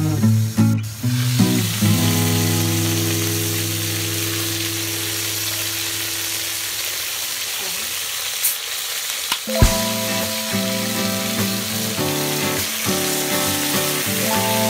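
Whole marinated chicken sizzling in a hot aluminium pot, with cola poured over it near the end. A single sharp knock sounds just before ten seconds in.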